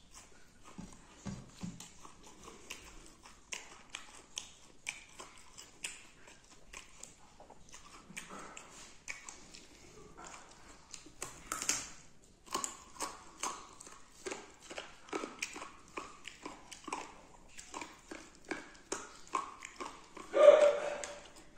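Close-up mouth sounds of someone eating beef: wet chewing, lip smacks and clicks, several a second and irregular. Near the end comes a louder, short vocal sound.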